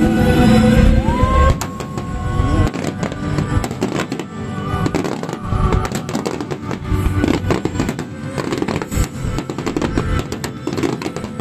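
Fireworks finale barrage: a rapid-fire volley of aerial shells and star mines, with many bangs and crackles one after another from about a second and a half in.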